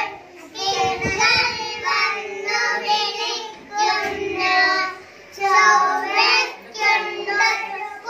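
A small group of young boys singing together into a microphone, in short phrases with brief pauses between them. There is a low thump about a second in.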